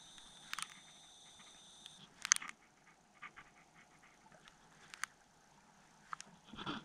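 Faint underwater sound picked up by a submerged camera: a few sharp, separate clicks and knocks, a thin high whine that stops about two seconds in, and a brief louder swish near the end as the camera is swung through the seaweed.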